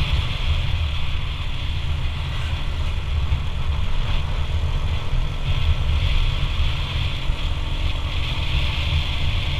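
Motorcycle running steadily while being ridden, under a loud, gusting wind rumble on the microphone and a steady hiss.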